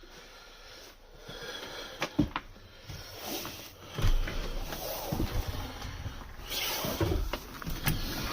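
Wind gusting against the microphone as an irregular low rumble that sets in about four seconds in, with hissy gusts and a few sharp knocks from the phone being handled.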